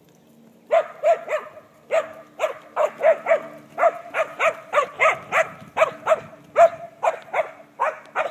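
Dog barking repeatedly in short, high-pitched barks, about two to three a second, starting just under a second in.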